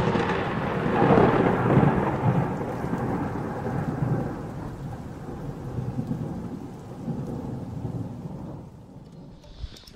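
Thunder with rain: a long rolling rumble that swells in the first two seconds, then slowly fades away, almost gone near the end.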